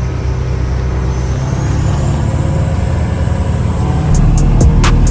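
Steady low rumble of a running vehicle engine, with a faint high whine rising in pitch. About four seconds in, music with a drum beat comes in over it.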